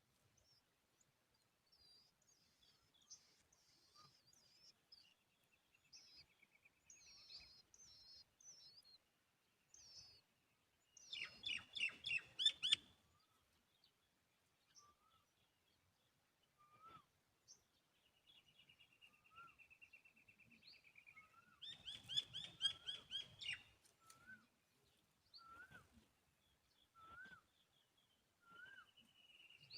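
Small songbirds calling: scattered high chirps and buzzy trills, with short upward notes repeated every second or so near the end. Twice, about a third and two-thirds of the way in, there is a loud burst of rapid, repeated calls lasting a couple of seconds.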